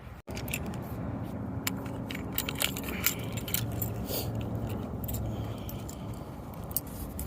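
Keys jangling, with repeated metallic clicks as a motorhome door lock is worked, over a steady low hum.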